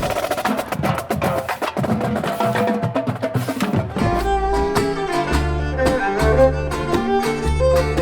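Music with percussion: about four seconds of rapid drumming, then a melody over a heavy, regularly pulsing bass beat.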